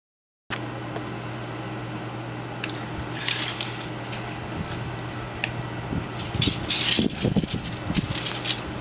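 Blizzard wind gusting, with bursts of hiss and, in the later gusts, wind rumbling on the microphone over a steady low hum. The sound cuts in abruptly about half a second in.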